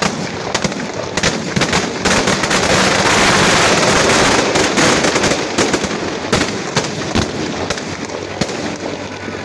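Firecrackers packed inside a burning Ravana effigy going off: scattered sharp bangs that build about two seconds in into a dense, continuous crackle lasting a few seconds, then thin back out to separate bangs.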